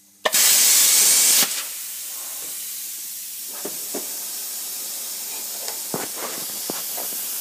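Hypertherm Powermax 30 plasma cutter making a short cut through thin aluminium sheet: a sudden loud hiss for just over a second as the arc cuts. After the arc stops, a steadier, quieter rush of air keeps hissing through the torch as post-flow cooling, with a few faint clicks.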